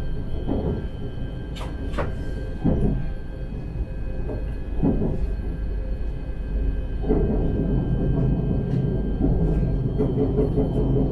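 Bombardier Talent 3 electric multiple unit running along the track, heard from the driver's cab: a steady low rumble with a few scattered knocks from the wheels on the rails and faint steady whine tones, growing louder about seven seconds in.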